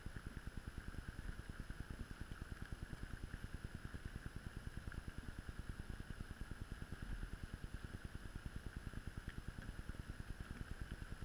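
An engine idling steadily: a fast, even low pulsing, about a dozen beats a second, with a faint hiss above it.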